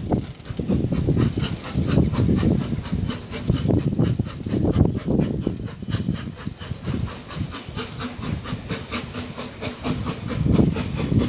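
BR Standard Class 4MT 4-6-0 steam locomotive 75078, a two-cylinder engine, approaching with a quick, even exhaust beat, with gusts of wind buffeting the microphone.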